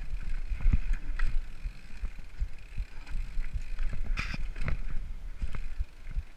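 Mountain bike rolling down a rocky trail: tyres on loose stone over a steady low rumble, with irregular knocks and clatter from the bike as it hits rocks, one sharper knock about four seconds in. Heard through a helmet-mounted camera.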